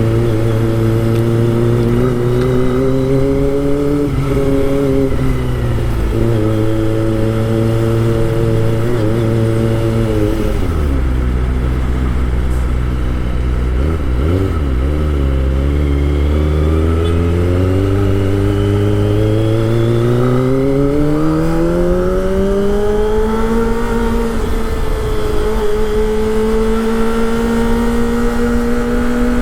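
Kawasaki Ninja ZX25R's 250 cc inline-four engine running under way. The revs drop about ten seconds in and hold low for several seconds, then climb smoothly and hold at a higher, steady pitch near the end.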